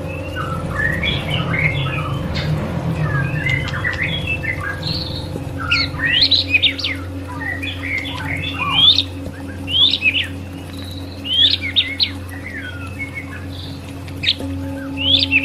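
White-rumped shama (murai batu) singing: a fast, varied string of short whistles and chirps, turning into separate phrases of sharp rising notes every second or two from about six seconds in, over a steady low hum.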